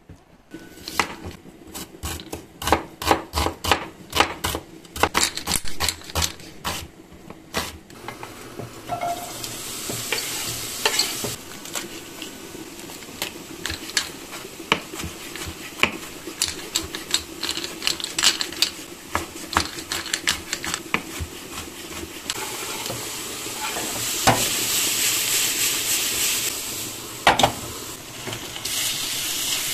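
Kitchen cooking sounds. First comes a run of quick, sharp utensil taps and scrapes for several seconds. From about nine seconds in, food sizzles steadily in a frying pan with sharp knocks mixed in, and the sizzling grows louder near the end as ground beef is added to the frying onions.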